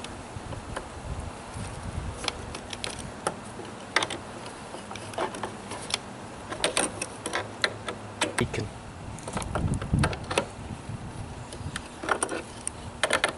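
Adjustable wrench clinking and clicking against a nut on a chair frame as it is fitted and turned to tighten the fastening, in scattered bunches of short taps.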